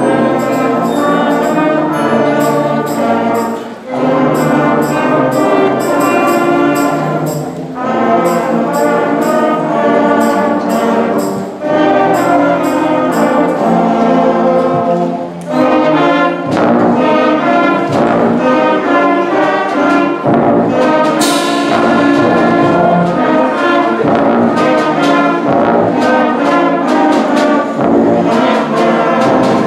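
Sixth-grade intermediate concert band playing, trumpets and other brass leading, with regular sharp strikes in the accompaniment and short breaks between phrases. A bright crash rings out about two-thirds of the way through.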